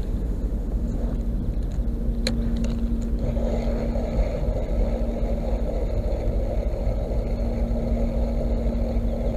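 Wind rumbling steadily on the microphone, with a faint steady hum underneath and a single sharp click about two seconds in.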